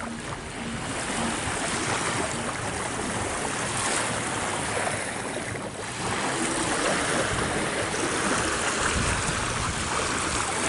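Small sea waves washing onto a sandy beach: a steady rush of water, a little louder about six seconds in.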